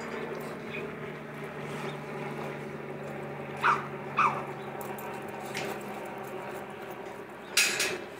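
Small Miniature Pinscher–Jack Russell mix dog rolling and rubbing its face in grass, making two short sounds that fall in pitch about half a second apart, a little under halfway through, and a longer, noisier sound near the end, over a steady low hum.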